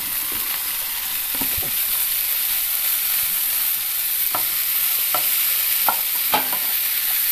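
Sizzling in a non-stick frying pan as sliced button mushrooms are tipped in from a plate and stirred into an onion-tomato masala with a spatula. A few short scrapes of the spatula on the pan come in the second half.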